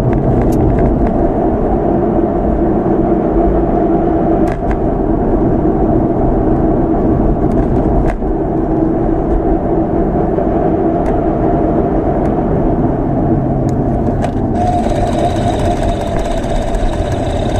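Subaru WRX STI (VAB) running steadily, with the transmission making a grinding, rushing "gori-gori, sha-sha" noise that the owner says appears in every gear: a sign of an internal fault in the manual gearbox. A higher hiss joins about three-quarters of the way through.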